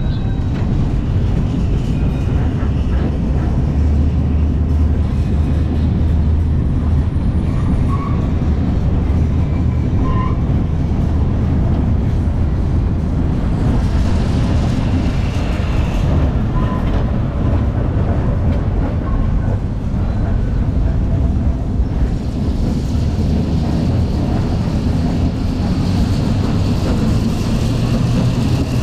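1906 double-deck electric tram running along its track, giving a steady low rumble from its wheels on the rails and its running gear.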